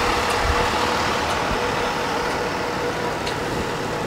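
A vehicle engine idling: a steady running noise with a faint constant hum and a few faint ticks.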